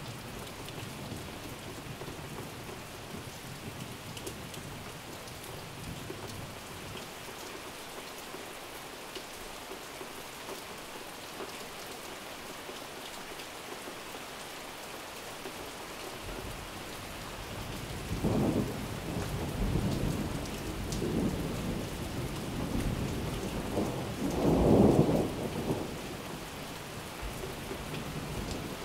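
Steady rain falling, with low rolls of thunder rumbling through the second half; the loudest roll comes shortly before the end.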